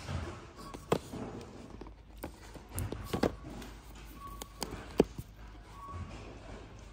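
Handling and opening a cardboard-boxed eyeshadow palette: rustling with a few sharp clicks and taps, the loudest about a second in, a little after three seconds and at five seconds. A few faint short beeps sound in the background.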